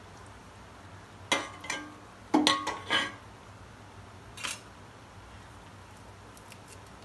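Stainless steel kitchen utensils clinking and knocking together, a steel plate against the steel pot: a quick cluster of about five sharp clinks with a short metallic ring, then one more a little later.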